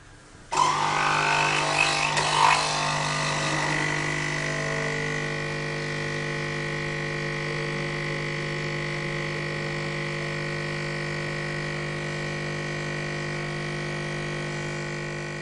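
Capsule espresso machine brewing: its pump comes on suddenly about half a second in with a rattle, then runs with a steady hum as coffee pours into the cup.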